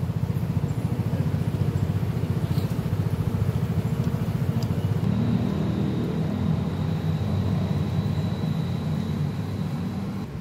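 A motor vehicle engine idling steadily with a fast, even low pulse. A thin high tone joins in about halfway through.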